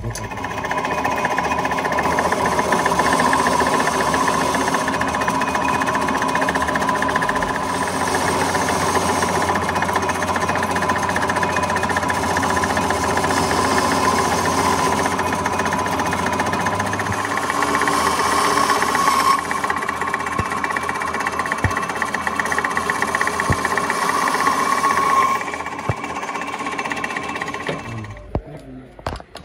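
Metal lathe running with its tool cutting in the bore of a truck axle flange, a steady, high whine of metal cutting with a rattling undertone. The lathe winds down and stops near the end.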